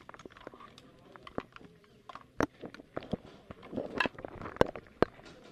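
Scattered sharp knocks and clicks of people getting up from their seats and moving about a crowded room, with faint murmured voices; the loudest knocks come in the second half.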